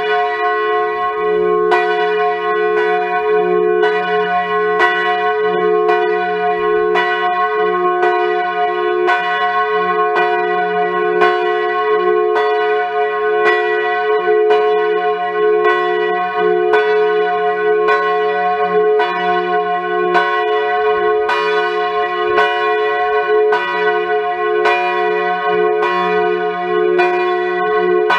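The big F bell of a five-bell Grassmayr ring cast in 2011, swung electrically and tolling steadily, its clapper striking about once a second.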